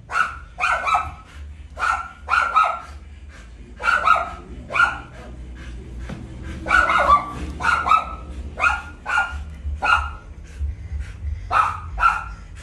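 A mixed-breed 'caramelo' dog barking, about twenty short sharp barks in quick clusters of two or three with brief gaps between.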